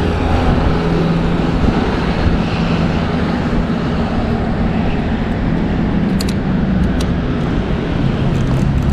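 Moped running along under way, a steady motor hum with heavy wind rush on the microphone.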